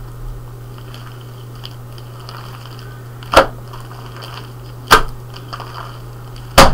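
Fluffy slime slammed down onto a board three times, each a sharp, loud slap, about a second and a half apart.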